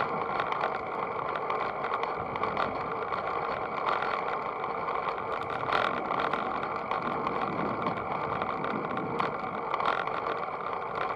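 RANS Tailwind recumbent bicycle riding along a cracked asphalt street: steady rolling noise from the tyres and ride, with a few small knocks and clicks now and then.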